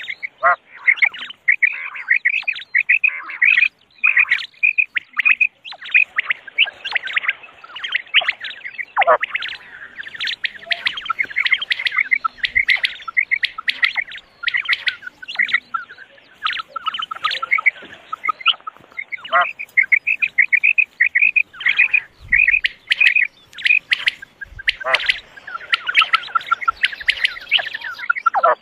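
Female common quails calling: quick runs of short, high, chirping notes repeated over and over, with now and then a longer call sliding downward.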